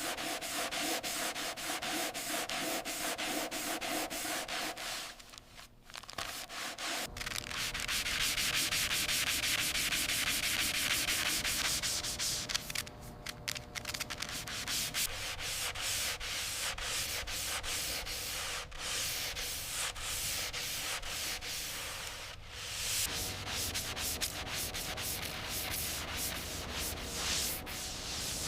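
Sanding on a car body panel between paint coats: a steady abrasive rasp of quick strokes. It pauses briefly twice and is loudest in the middle.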